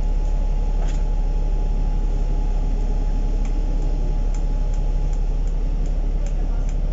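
Steady low rumble of a KMB bus's engine and running gear, heard from inside the passenger cabin. In the second half faint, light ticks come about two or three times a second.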